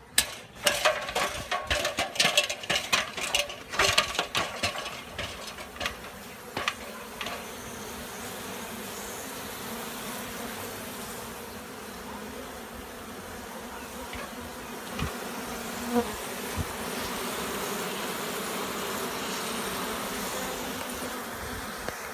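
A run of sharp knocks and clanks from an aluminium extension ladder being climbed, then a colony of honey bees buzzing steadily around their nest in an opened house wall for the rest of the time, with a couple of single knocks midway.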